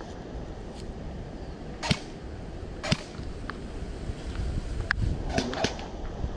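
Airsoft guns firing single shots: sharp cracks at about two and three seconds in and a quick pair near the end, with a couple of fainter ticks in between.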